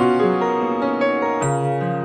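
Background music of sustained chords, with a new chord coming in about one and a half seconds in.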